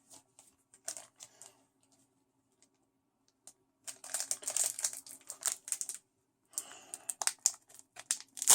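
Pokémon trading cards being handled and leafed through. There are light clicks at first, then bursts of crisp rustling and card-on-card clicking from about four seconds in.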